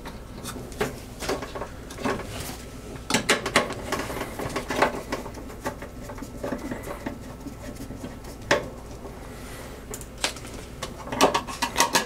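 Irregular light clicks, taps and scrapes of a screwdriver and fingers on the plastic relay, its wire connectors and the dryer's sheet-metal console as the old motor relay is worked loose.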